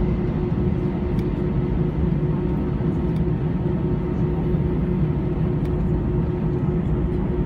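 Jet airliner taxiing, heard from inside the passenger cabin: a steady low drone of engines and cabin air with a steady hum running through it.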